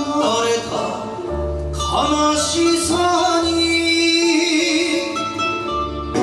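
A man singing an enka ballad live into a microphone, backed by a small band with a low bass line. A little past halfway he holds one long note with a wide vibrato.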